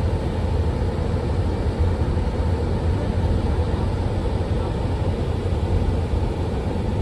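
Steady road and engine noise of a moving car heard from inside the cabin: an even low rumble that does not change.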